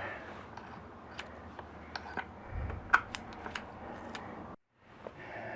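Scattered small metallic clicks and ticks as a nut is fitted by hand onto the hot-wire terminal of an ATV starter motor, with a dull low knock about two and a half seconds in. The sound cuts out completely for a moment near the end.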